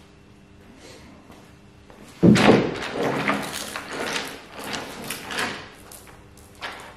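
Steel chain of a manual chain hoist rattling and clanking as it is handled. A sudden loud clank about two seconds in, then irregular rattling for about three seconds, and one more small clink near the end.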